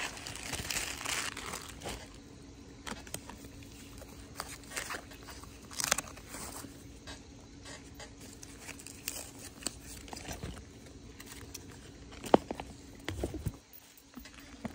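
Tissue-paper wrapping crinkling and rustling as it is handled and pulled off a leather handbag, with tape being peeled away. The rustling comes in short bursts, densest in the first two seconds, with a louder crinkle about six seconds in and a sharp click near the end.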